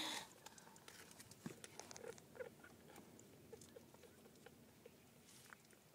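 Faint soft clicks and smacks from a tabby mother cat with a ginger kitten suckling at her belly, with a few short faint squeaks, after a brief rustle right at the start.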